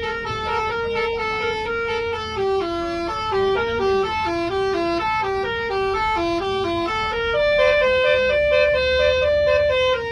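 Bus 'telolet' musical horn playing a melody of short held notes that step up and down, with a low engine rumble underneath. It gets louder for the last couple of seconds.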